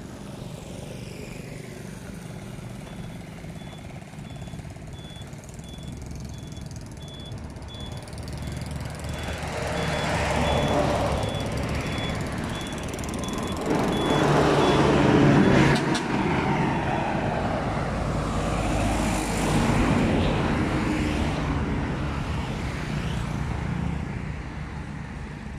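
Road traffic passing: several vehicles swell up and fade away over a steady low rumble, the loudest about halfway through. A string of short, high, evenly spaced beeps sounds from about two seconds in to about eight.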